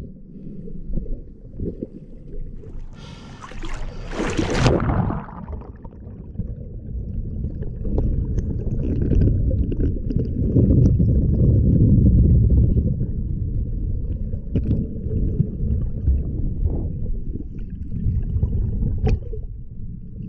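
Water splashing about three to five seconds in as the camera goes under the lake surface, then a steady, muffled underwater rumble of water moving against the camera, with scattered small clicks.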